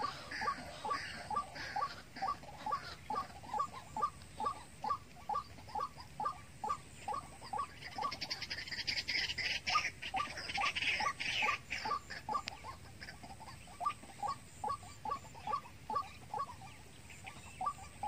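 White-breasted waterhen calls: a long run of short, evenly repeated notes, about three a second. A higher scratchy noise joins for a few seconds in the middle.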